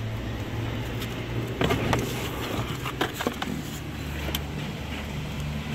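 A car's A/C evaporator core being pulled out of its plastic housing under the dashboard: several scrapes and knocks of the core against the housing, over a steady low hum.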